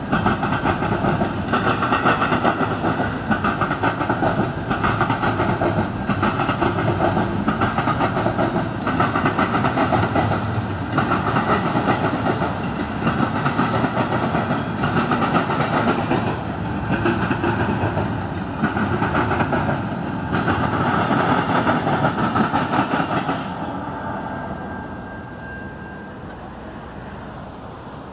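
Double-stack container cars of a CN freight train rolling past, the wheels on the rails making a steady rumble with a clatter that repeats about once a second. The sound falls away suddenly about 24 seconds in as the end of the train passes.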